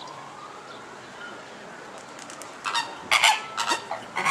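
Flamingos honking: a quick series of about five loud, goose-like calls starting about two and a half seconds in.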